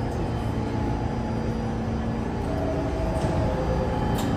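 Steady hum of an R46 subway train standing at the platform, its onboard equipment running, with a brief sharp click near the end.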